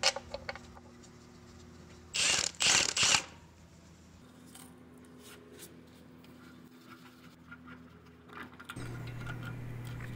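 Ratchet wrench clicking on the oil pan bolts while they are tightened: a few clicks at the start, then three short runs of ratcheting about two to three seconds in. A steady low hum runs underneath and gets louder near the end.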